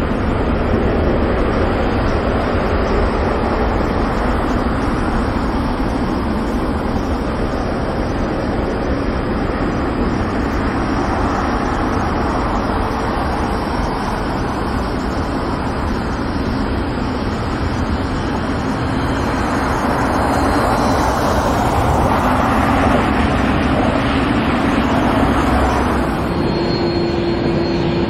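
Jet engines of a Qantas Airbus A380 (four Rolls-Royce Trent 900s) running on the runway: a steady rushing noise that swells toward the end. Shortly before the end it changes abruptly to another A380's engine noise with a steady hum.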